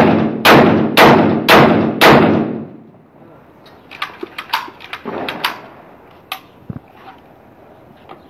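Darra-made 12-bore AK-47-style shotgun fired five times on single (semi-automatic) fire, about two shots a second, each shot trailing off in an echo. It is followed a couple of seconds later by a few light metallic clicks as the gun is handled.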